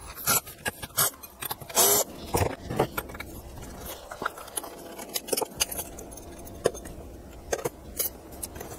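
A hard disk drive being dismantled: a few short bursts from a cordless drill-driver backing out the small platter-clamp screws in the first seconds, then small metal clicks and scrapes as the clamp and aluminium platter are worked loose and lifted off.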